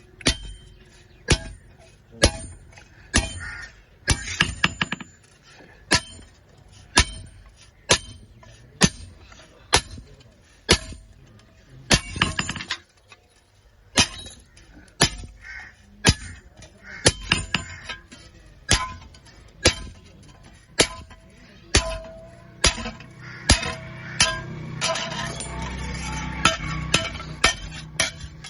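Hammer blows on an iron part in a steady rhythm, about one a second, each with a short metallic ring. In the last few seconds a rough scraping noise joins the blows.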